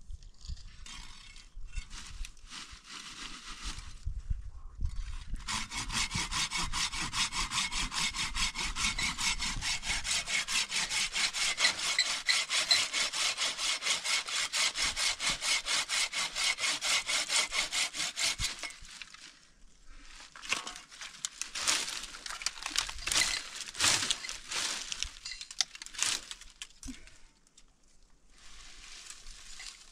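Wood being sawn with fast, even strokes for about thirteen seconds, then irregular knocks and clatter.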